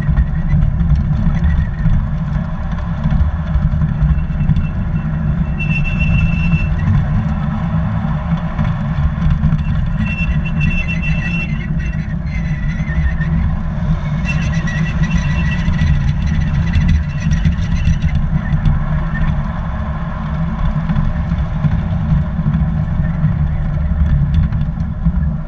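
Garden-railroad train rolling along its track, heard on board the car: a loud, steady rumble of wheels and running gear, with brief high-pitched squeals that come and go three times.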